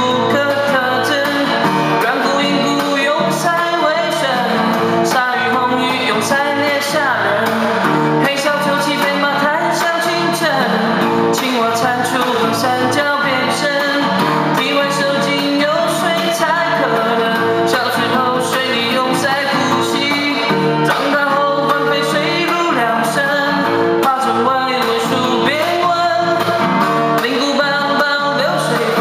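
Male voice singing a Mandarin pop song over a band accompaniment with a steady beat.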